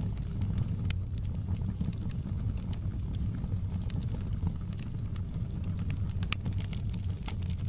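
Wood fire burning in a fireplace: a steady low rush of flames with scattered sharp crackles and pops, several in quick succession near the end.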